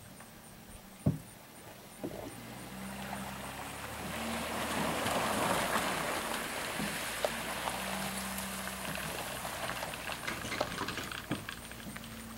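An engine starts running with a low steady hum about two seconds in, after a single click. A rushing noise swells over it in the middle and then fades.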